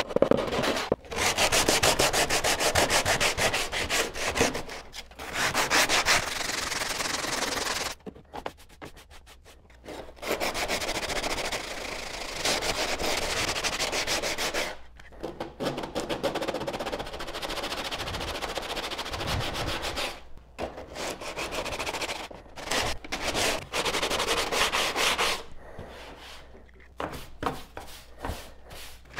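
Hand sanding of a bare cedar-strip kayak interior: sandpaper rasping over the wood in fast back-and-forth strokes, in several runs with short pauses between them.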